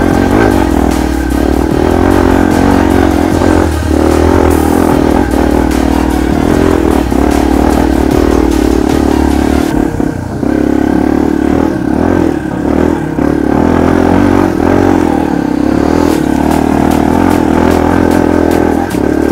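Dirt bike engine running loud and close, its pitch wavering with the throttle; the sound changes about halfway through.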